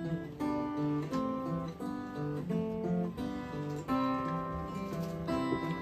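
Acoustic guitar played solo, strumming and picking chords, with a new chord or note group sounding about every half second.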